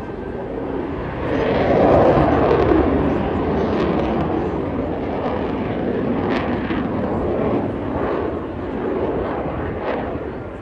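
A Eurofighter Typhoon jet and a Spitfire flying past together in close formation: a loud aircraft roar that swells about two seconds in and then holds.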